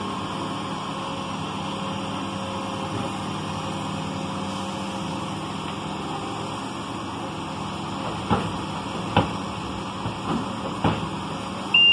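Diesel engines of a Kubota compact loader and a dump truck idling steadily. In the last few seconds come four sharp knocks about a second apart, and a loud high beep starts right at the end.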